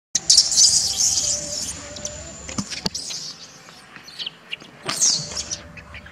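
Baby macaque screaming in high-pitched distress cries: a loud run of cries in the first second and a half, then a shorter burst about five seconds in.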